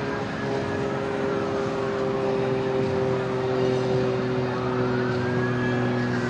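Steady engine drone whose pitch sinks slowly, over outdoor background noise, with a faint higher wailing tone that falls away and then rises again near the end.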